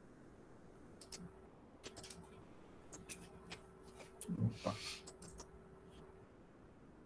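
Computer mouse clicking, a few faint separate clicks spread out, with a louder soft thump about four and a half seconds in.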